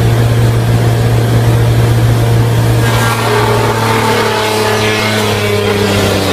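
Blade-type wood sawdust crusher, driven by an electric motor, running at speed with a steady deep hum. About three seconds in, wood is fed into the hopper and the sound changes, with higher tones that shift in pitch as the blades chip it into sawdust.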